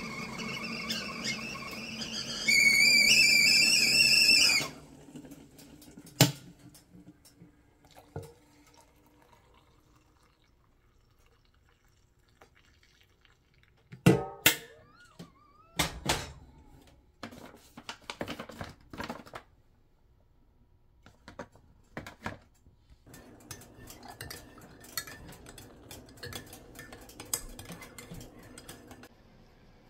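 Stovetop kettle whistling at the boil, two wavering high tones that grow louder and then cut off about four and a half seconds in. Scattered clinks of kitchenware follow; about halfway through, hot water is poured from the kettle into a ceramic mug; near the end a metal spoon stirs and clinks in the mug for several seconds.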